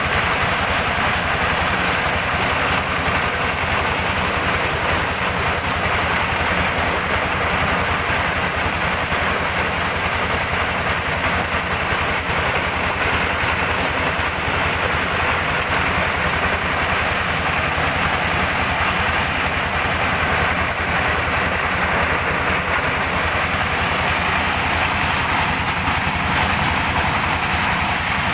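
Diesel-engine-driven corn sheller running steadily under load as cobs are fed in, shelling the kernels: a constant, dense mechanical din with a fast, even pulse.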